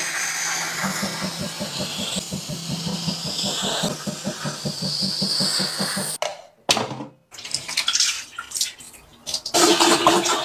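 Handheld fabric cleaner's motor running with a rapid pulsing as its suction head passes over a plush rug, then cutting off suddenly about six seconds in. After that, uneven splashing of water, ending with a tap running over the cleaner's tank.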